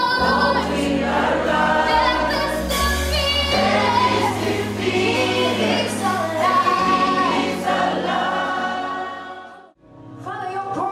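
Choir singing a gospel song over steady low accompaniment notes that change every second or two; the sound drops out briefly near the end, then resumes.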